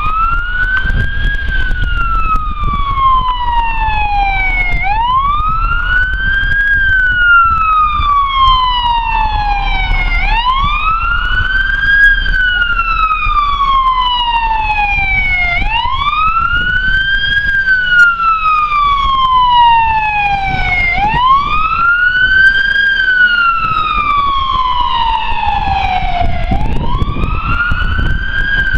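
Scania G420 fire engine's siren sounding a wail: each cycle rises quickly over about a second and a half, then falls more slowly over about four seconds, repeating roughly every five seconds, with a low rumble underneath.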